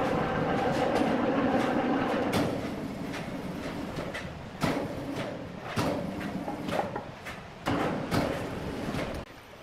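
Electric hoist running steadily with a mechanical hum as it lowers a heavy wooden slab on steel cables, then stopping after about two seconds. Several sharp knocks and clanks follow, about a second apart, as the slab is guided down onto the slab below.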